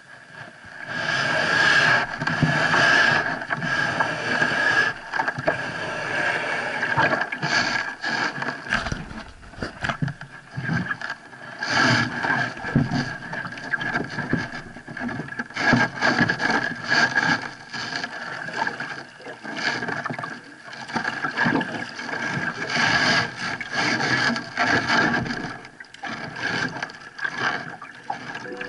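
Water splashing and slapping against a kayak's hull as it moves through small waves, coming in uneven surges.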